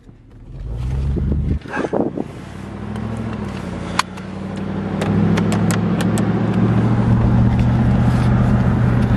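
Muffler-deleted, straight-piped V8 Toyota 4Runner heard from inside the cab as it drives off. The exhaust swells about half a second in, then settles into a steady deep drone from about five seconds, with a few sharp clicks along the way.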